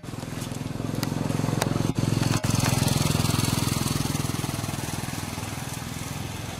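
An engine running, its steady low drone growing louder over the first few seconds and then slowly fading, as of a vehicle passing by.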